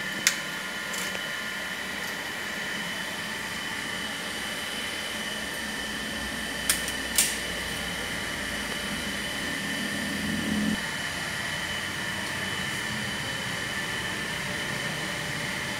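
Steady machine-room drone with a faint high whine, broken by three sharp clicks: one near the start and two about half a second apart midway. A low rumble swells briefly and cuts off suddenly about two-thirds of the way in.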